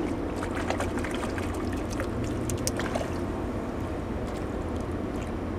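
A hooked northern pikeminnow splashing at the water's surface on a pole line: a quick run of small, sharp splashes over the first three seconds or so. A steady low rumble runs underneath.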